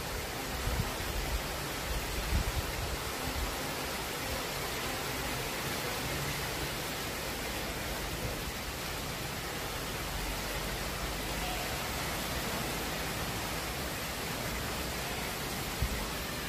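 Heavy tropical rain falling steadily, an even hiss with no let-up. A few low thumps come in the first few seconds.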